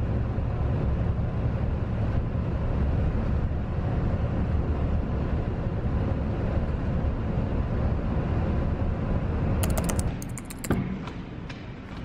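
Steady low rumble of engine and tyre noise inside a bus cruising on a highway. Near the end there are a few sharp clicks, and then the rumble cuts off.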